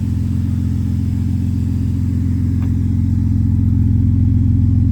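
BMW inline-six engine running steadily through a muffler-deleted exhaust, a deep even drone with no lifter tick: the hydraulic lifters have quietened after a lifter additive.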